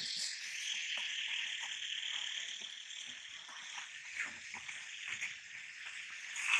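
A steady, high-pitched chorus of insects droning, with faint scattered ticks and taps close by.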